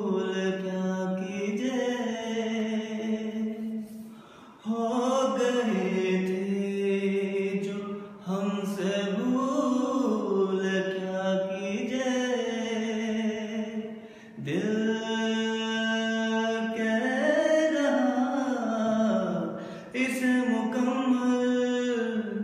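A man singing unaccompanied: long held notes with a wavering, ornamented pitch, sung in phrases a few seconds long with short pauses for breath between them.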